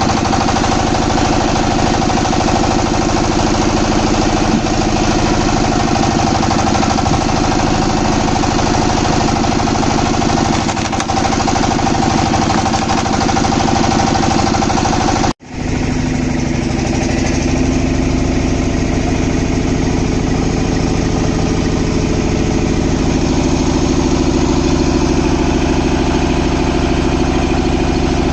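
Wood-cutting machine running with a steady, loud engine-like drone. About halfway through, the sound drops out abruptly and comes back at once with a slightly different pitch.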